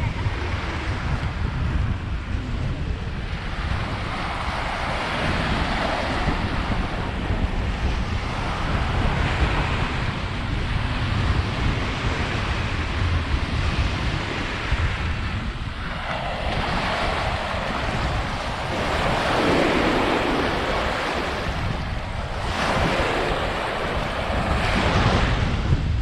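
Small waves breaking and washing up on the shore, the rush swelling and fading every few seconds. Wind buffets the microphone underneath as a steady low rumble.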